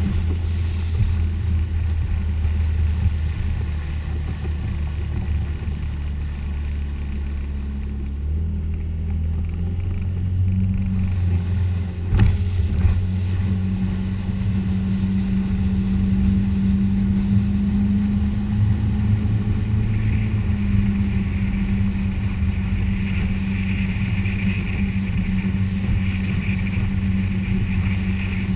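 Motorboat engine running steadily under way, heard from on board, its note changing about eight seconds in as the boat drops from a fast run to a slow cruise. A single sharp knock about twelve seconds in.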